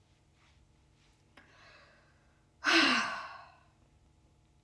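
A woman sighing: a faint breath in, then about halfway through a loud, voiced exhale that falls in pitch and trails off.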